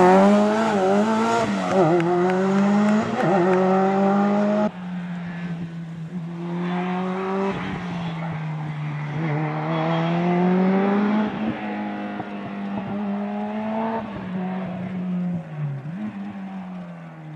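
Ford RS200 Group B rally car's turbocharged inline-four at full throttle, its pitch climbing and dropping again and again through gear changes. About five seconds in, the sound cuts to a quieter, more distant run of the same engine, still rising and falling.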